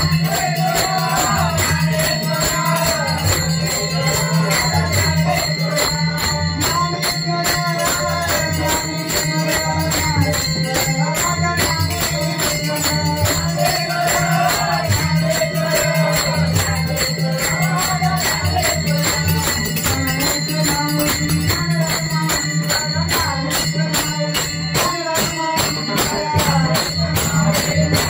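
Devotional bhajan in full swing: many pairs of brass taal hand cymbals clash in a steady, driving rhythm over a double-headed barrel drum, a harmonium's held notes and men's voices singing.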